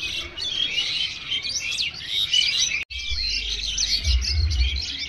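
A flock of small birds chirping and twittering together, many overlapping calls at once, with a momentary break about three seconds in.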